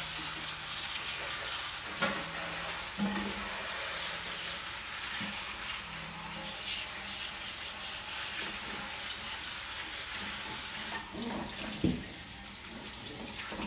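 Kitchen tap running steadily into a metal sink as celery stalks are rinsed under the stream, with a few knocks as the stalks are handled against the sink.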